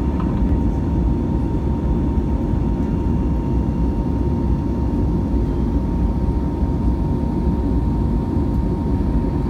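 Cabin noise of an Airbus A320neo climbing out after takeoff: its Pratt & Whitney geared turbofans and the airflow make a steady low drone, with a steady mid-pitched hum above it.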